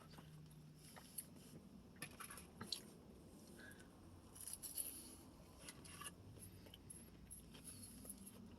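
Faint eating sounds: chewing and small crackles and clicks, with a few louder clusters around two to three seconds in and again around five seconds in.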